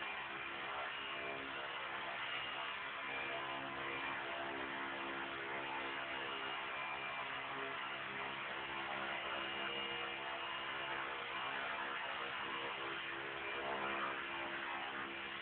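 Esky Honey Bee King 2 electric RC helicopter with belt-driven tail and collective pitch, hovering: steady whine of the motor and drive with the buzz of the spinning main and tail rotors.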